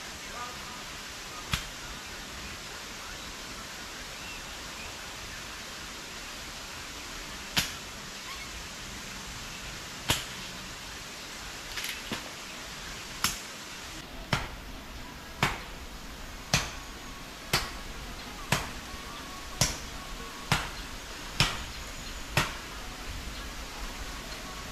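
Chopping strokes of a blade biting into wood while bush and small trees are cut back. A few scattered sharp chops come first, then a steady run of about one chop a second from about halfway through, over a steady background hiss.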